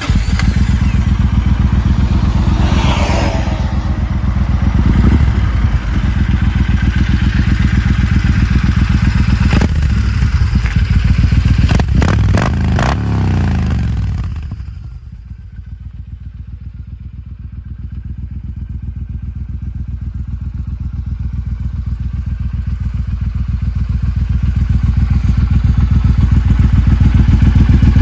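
Triumph Thunderbird Storm 1700 cc parallel-twin motorcycle running just after start-up: a steady, deep idle throb through its chrome exhaust. The engine is briefly revved a few seconds in and again around twelve seconds in. The sound drops away for a moment about halfway, then grows steadily louder as the exhaust outlet is approached.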